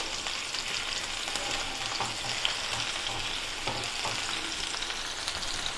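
Sliced onions sizzling steadily in hot oil in a frying pan while a spatula stirs them, with a couple of faint taps of the spatula on the pan.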